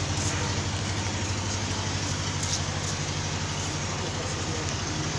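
A steady low mechanical hum, like a running engine, under a constant noisy hiss.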